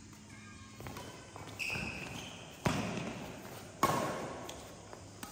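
Badminton rackets striking a shuttlecock twice in a rally, about a second apart, each hit sharp and ringing out in a large echoing gym hall.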